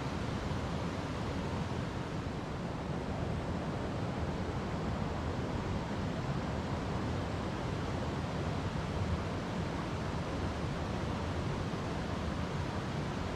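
River water rushing over rocks: a steady, unbroken rush, fullest in the low range.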